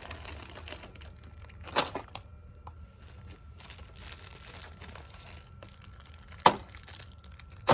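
Plastic snack wrappers crinkling as hands rummage through a snack drawer, with a few sharp clicks, the loudest about six and a half seconds in.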